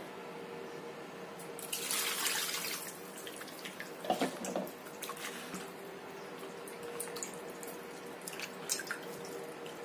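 Raw chicken pieces being rinsed by hand in a plastic bowl of water: splashing, sloshing and dripping, with a louder rush of water about two seconds in and small drips and splashes after.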